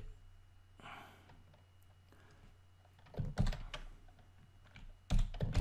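Computer keyboard typing in short runs of keystrokes, a cluster a little after three seconds in and another near the end, over a faint steady low hum.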